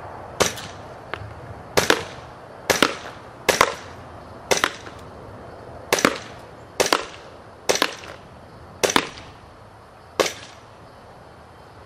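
KJW Glock 27 gas blowback airsoft pistol firing semi-automatic, about ten sharp cracks spaced irregularly roughly a second apart, each shot cycling the metal slide.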